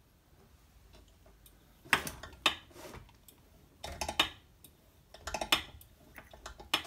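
Sharp clicks and light taps in small clusters about a second apart, from hands working the altimeter test bench while the simulated altitude is being raised.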